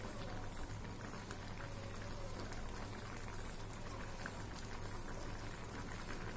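Shukto (mixed vegetables in a milk-and-water broth) coming to the boil in a kadai: a soft, steady bubbling with small pops and crackles.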